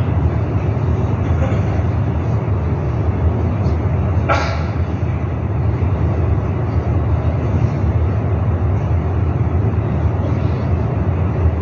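Steady, low rumbling ambience of a crowded prayer hall, with a single short, sharp sound about four seconds in.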